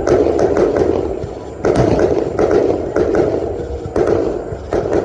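Fireworks going off: a rapid, uneven string of loud bangs, several a second, with crackling between them.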